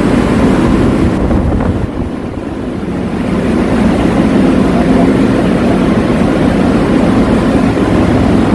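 Steady, loud machinery noise of a ship's engine room, with motor-driven pumps and other plant running, and a low, even drone. It eases slightly about two seconds in, then comes back up.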